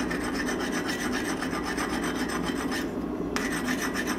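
A piece of broken grinding wheel scraped back and forth over hardened steel in quick, even strokes, scouring off scale so the temper colours can be seen. The strokes pause briefly about three seconds in. A steady low hum runs underneath.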